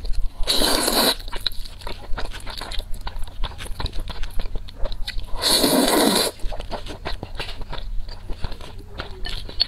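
Spicy noodles slurped loudly into the mouth twice, about half a second in and again around five and a half seconds, with wet chewing and mouth clicks between.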